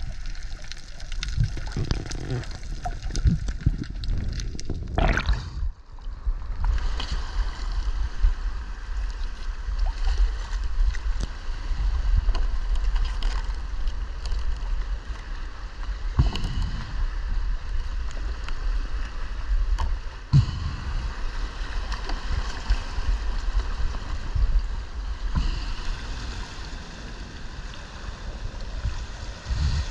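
Water sloshing and gurgling around an action camera underwater, then, after a cut about six seconds in, shallow sea water washing and sloshing over rocks at the shoreline.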